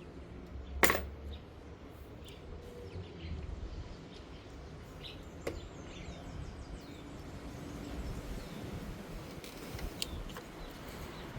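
Hand tools and parts being handled while changing ignition coils and spark plugs. There is one sharp knock about a second in, then a few lighter clicks and taps.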